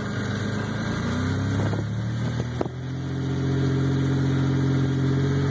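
Lifted Toyota pickup rock crawler's engine pulling it slowly up a rutted sandy climb. The revs rise a little, dip with a brief click about halfway through, then hold steady and a bit louder.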